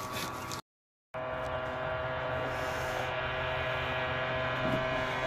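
Steady machine hum with several held tones, after a brief dropout about half a second in.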